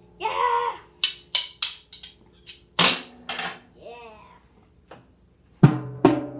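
Child playing a drum kit: a quick run of drum strikes about a second in, a louder hit that rings on near three seconds, and more hits near the end, with short vocal shouts between them.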